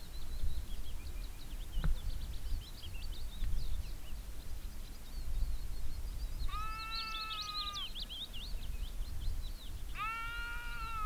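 Sheep bleating: two long bleats a few seconds apart, the second bending down in pitch at its end, over continuous high twittering of small birds and a low rumble of wind.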